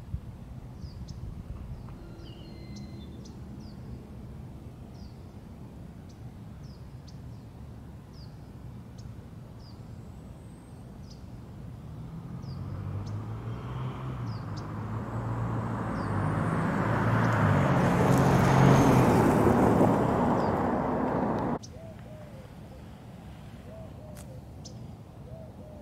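A small bird chirping repeatedly, short high chirps about once a second. Then a motor vehicle approaches and passes, its engine and road noise swelling over several seconds until it cuts off suddenly.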